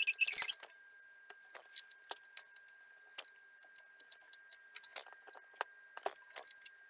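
Play dough being dug out of a plastic tub with a short rustling scrape at the start, then scattered faint clicks and taps as small bits of dough are handled on the table, over a faint steady high whine.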